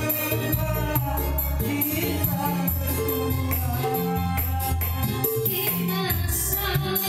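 Live dangdut band music: singing over a bass line that changes note about once a second, with a steady beat of high percussion.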